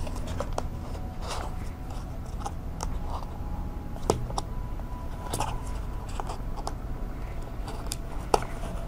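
Cardboard box handled and its lid pushed shut: rustling and scraping of card with scattered small clicks, and two sharper knocks, about four seconds in and near the end.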